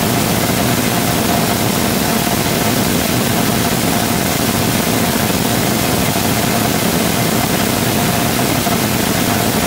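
3D-printed rotating detonation rocket engine combustor firing steadily on a test stand: a loud, constant rushing noise with a steady mid-pitched tone running through it.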